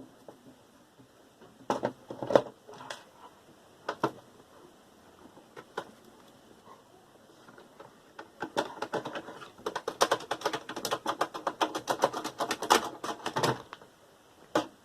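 Clicks and small metallic knocks from hand tools and parts during the disassembly of a desktop computer tower. A few separate clicks come early, then a long run of rapid clicking in the second half, and one last click near the end.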